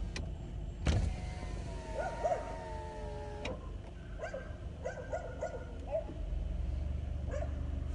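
Street dogs barking in short, high yaps at uneven intervals, with a long drawn-out howl about a second in. A car engine idles low underneath.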